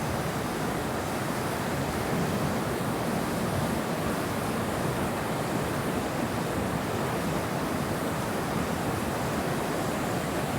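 Steady rush of a river's flowing water, an even unbroken noise.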